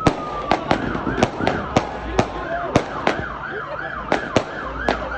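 Fireworks going off in quick, irregular bangs, about three a second. From about a second in, a police siren yelps with a fast rise and fall in pitch.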